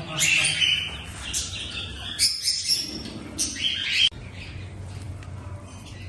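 Pet birds chirping, a run of quick, high calls that breaks off abruptly about four seconds in, leaving fainter chirps over a low hum.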